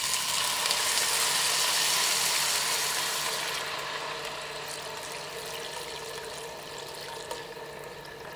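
Water poured in a steady stream into a hot non-stick pot of fried pork riblets and rice. It hisses loudly at first; about three and a half seconds in the high hiss fades, and the pour goes on more quietly into the filling pot.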